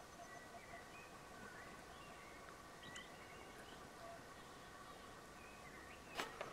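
Near silence: faint outdoor quiet with a few faint short chirps, and a light click about three seconds in and another, slightly louder, near the end.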